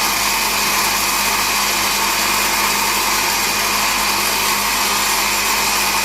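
Electric blender motor running steadily at full speed, blending apple, mango and ginger into juice.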